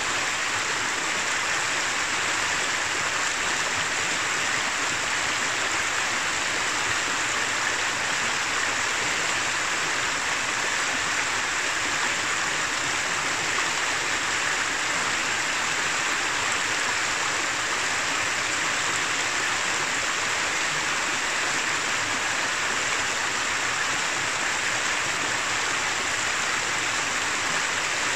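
Shallow mountain river running over rocks and stones: a steady, unbroken rush of flowing water.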